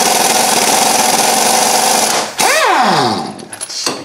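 Pneumatic impact wrench hammering on a rusted 17 mm sway bar end link nut to back it off. It stops briefly a little over two seconds in, fires again, then is released and spins down with a falling whine about three seconds in, followed by a few light knocks.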